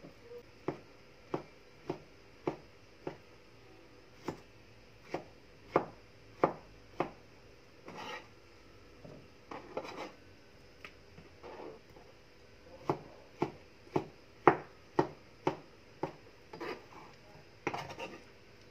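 Kitchen knife slicing mango on a cutting board: runs of sharp knocks, about two a second, as the blade strikes the board through the fruit, with short pauses between runs.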